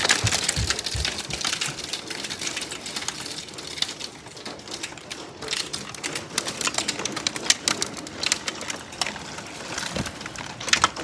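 Hail and rain pelting down in a thunderstorm, a dense clatter of small hits that thins out over the first few seconds into scattered sharper ticks.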